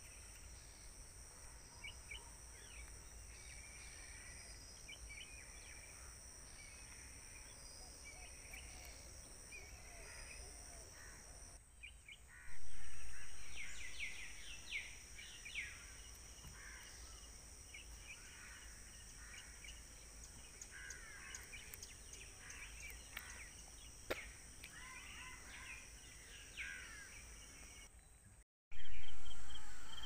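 Outdoor evening ambience of birds chirping and calling, over a steady high drone of insects. Twice, about twelve seconds in and near the end, a sudden loud swell of sound fades away over a few seconds.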